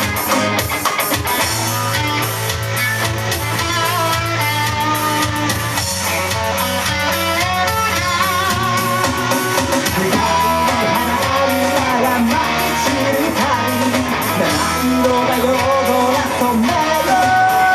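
A rock band playing live through an instrumental passage between sung verses: electric guitar, bass and a drum kit, with a lead melody that bends up and down over the band.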